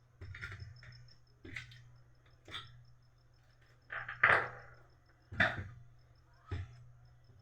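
Plastic printer parts being handled and set down on a work surface: a series of short knocks and clatters, the loudest about four seconds in.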